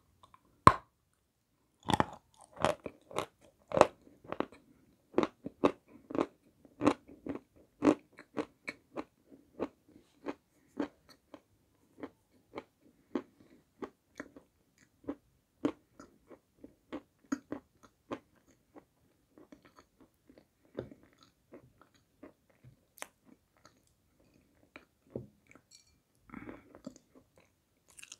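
Close-up crunching bites and chewing of a dry white block of edible clay: many crisp, sharp crunches, coming thick and fast at first and thinning out towards the end.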